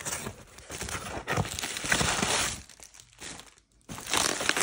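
Bubble wrap and cardboard packaging being handled: crinkling and crackling as a hand opens the box flaps and rummages through the bubble wrap, in two spells with a short lull before the second, which starts about four seconds in.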